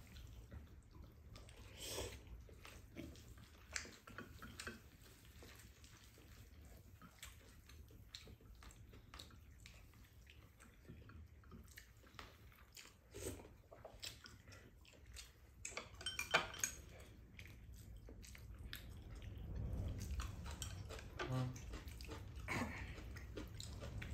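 Spoons and chopsticks clinking and scraping against ceramic bowls during a meal, with soft chewing: scattered short clinks, the loudest about sixteen seconds in, over a faint steady low hum.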